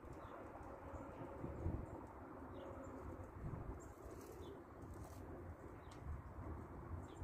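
Faint outdoor ambience: wind rumbling on the microphone, with a few short, faint bird chirps scattered through it.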